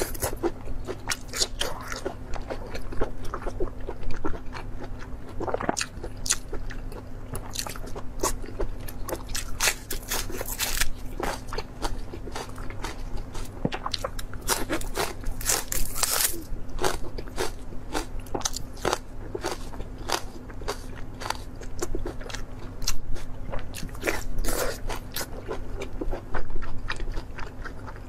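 Close-miked eating: irregular bites and chewing with many crisp, crackling crunches, heaviest in a few clusters, as crunchy raw food such as green onion stalks is bitten and chewed.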